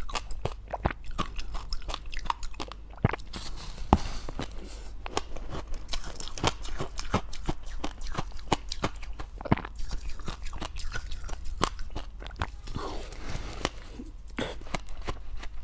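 Close-up chewing of dry, powdery freezer-frost ice: a dense, irregular run of sharp crunches and crackles.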